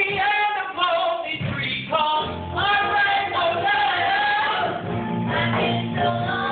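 Musical-theatre number: voices singing over musical accompaniment, with a steady bass line coming in about five seconds in.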